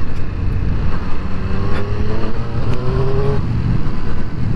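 Wind noise and a motorcycle engine at road speed, heard from a microphone inside the rider's helmet. Through the middle a faint engine tone rises slightly, then fades.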